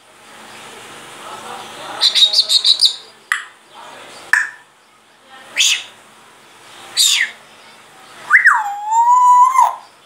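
Grey parrot whistling and chirping: a quick run of about seven short chirps, a couple of single calls, two sharp falling whistles, then a long whistle near the end that drops and holds a steady pitch.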